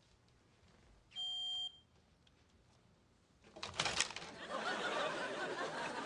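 A smoke detector gives a single high-pitched beep lasting about half a second, a second in; it is the alarm that will not stop beeping. From about three and a half seconds in, a louder burst of studio audience laughter with a few sharp clicks takes over.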